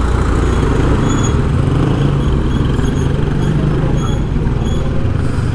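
Steady road traffic noise, with vehicle engines running close by.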